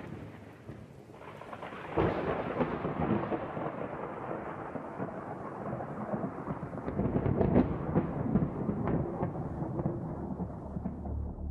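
A crackling, thunder-like rumble that starts suddenly about two seconds in and grows duller as it goes on.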